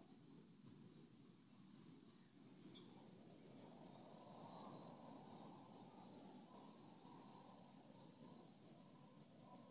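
Faint outdoor quiet with an insect chirping in an even, high-pitched rhythm, a little under one chirp a second, over a low hiss.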